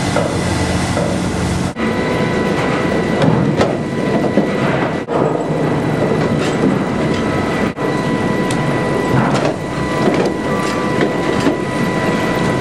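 Sawmill log-handling machinery running loudly. There is a dense clattering of knocks and rattles over a steady high machine whine, and it cuts off abruptly for an instant three times.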